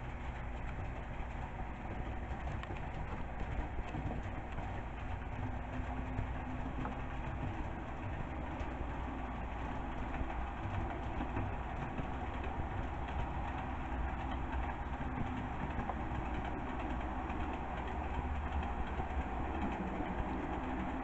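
HO scale model train running on the layout's track: a steady whir of the locomotive motor with the rumble of small wheels on rail.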